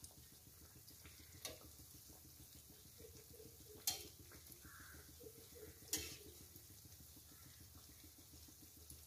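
Faint sizzle of balushahi dough rounds deep-frying in oil in an iron kadhai. A slotted metal spoon makes three short clicks, about 1.5, 4 and 6 seconds in, the middle one the loudest.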